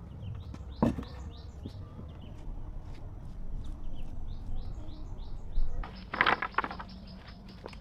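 Small birds chirping in a steady stream of short, falling chirps. There is a sharp knock about a second in, and a brief rough, scratchy burst around six seconds in.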